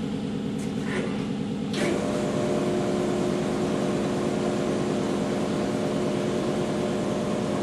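AMMCO brake lathe running with a steady mechanical hum. About two seconds in, after a faint click, it gets louder and a steady whine joins, as the lathe is switched up to run.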